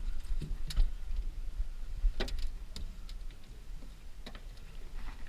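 Scattered light knocks and ticks of a landed fish and fishing line being handled on a boat, with a few sharper knocks spread through, over a steady low rumble.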